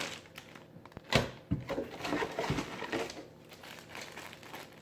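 Plastic bags of RC kit parts being handled, crinkling and rustling, with a few light knocks as the parts are moved.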